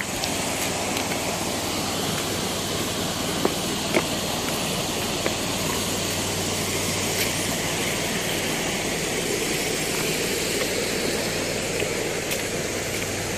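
Steady rush of river water, with a few faint clicks.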